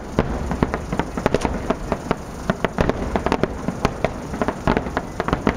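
Aerial firework shells bursting: a rapid, irregular series of sharp bangs, several a second, over a steady low rumble.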